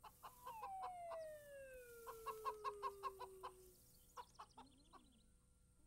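Faint cartoon hen clucking: a long tone sliding slowly downward, with a quick run of short clucks about two seconds in, then a few scattered soft clucks near the end.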